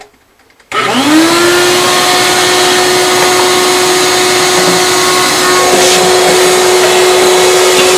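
Vacuum cleaner switched on under a second in, its motor spinning up to a steady whine, sucking routing sawdust out of the inside of an acoustic guitar.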